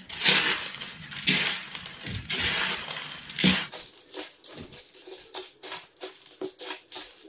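Dry instant noodles being crushed and mixed by hand on a plate: a few loud crunching bursts in the first three and a half seconds, then many small, quick crackles.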